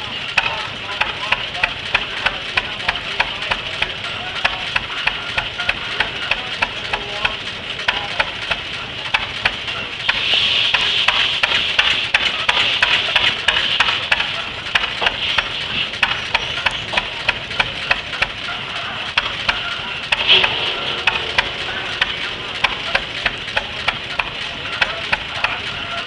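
The 6 hp Fairbanks Morse throttle-governed engine on a half-scale OTTO friction-drive tractor runs steadily while driving a circular sawmill by flat belt, its exhaust popping in an even beat. A hiss rises over it from about ten seconds in and lasts several seconds.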